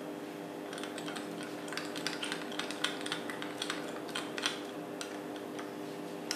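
Spoon clicking and scraping against a small glass bowl in quick, irregular taps while stirring a salad dressing, over a steady hum.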